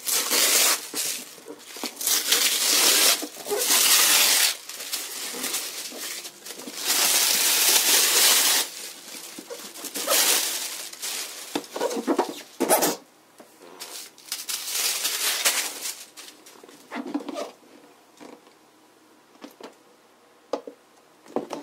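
Rustling and scraping of a figure's cardboard window box as its printed outer sleeve is slid off and the box is handled, in several long noisy bursts that die down over the last few seconds.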